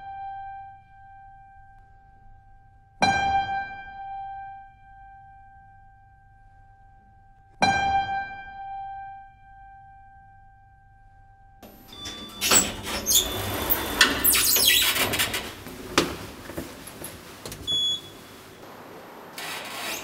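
A single high keyboard note, like a piano, struck twice at the same pitch about four and a half seconds apart, each left to ring out. From about twelve seconds in, a loud jumble of noise with sharp clicks and knocks takes over.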